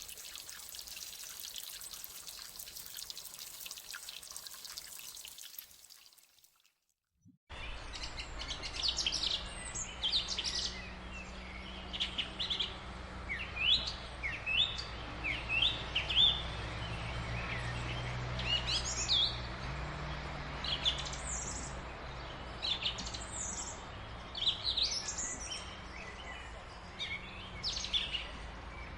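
Water pouring or trickling for about six seconds, then cutting off abruptly. After a brief silence, many birds chirping in short, quick calls over a steady low hum.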